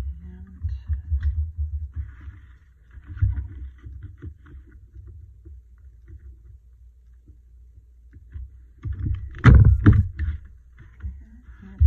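Paper and a handheld white plastic craft tool being handled and bumped on a tabletop: low bumps and scattered light clicks, with a louder clatter of several knocks about nine and a half seconds in.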